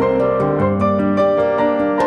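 Background music: a gentle piano melody with held notes.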